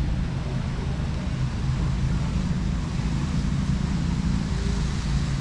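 Steady low rumble of outdoor city ambience, with wind buffeting the microphone.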